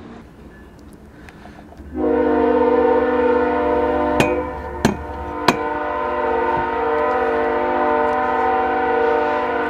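A distant train horn sounding one long, steady chord, starting abruptly about two seconds in, with a low rumble under it for the first few seconds. Three sharp knocks stand out in the middle.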